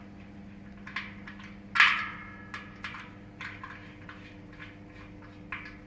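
Small clicks and taps of metal parts being handled as a brass screw is fitted into a vacuum port, the loudest about two seconds in with a brief ring after it. A faint steady hum runs underneath.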